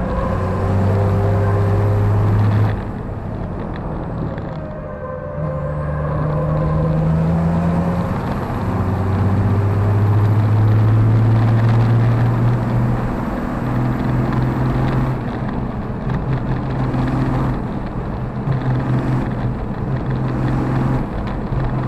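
Race truck's diesel engine heard from inside the cab under hard acceleration. The pitch climbs through each gear and drops at every shift. Near the end the engine note comes and goes in short runs.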